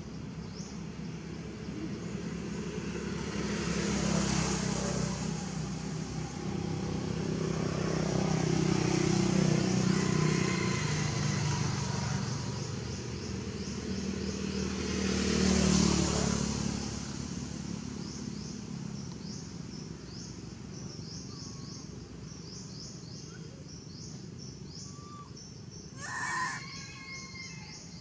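Motor vehicle engine noise swells and fades, loudest about 4 and 16 seconds in, over steady rapidly pulsing insect calls. A brief animal call comes near the end.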